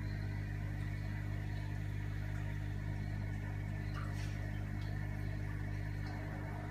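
Aquarium pump humming steadily at a low pitch, with a faint click about four seconds in.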